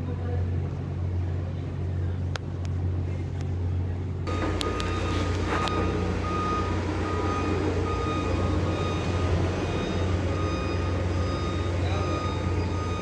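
Truck engine running steadily with a low hum; from about four seconds in, a high, repeating warning beep sounds over it.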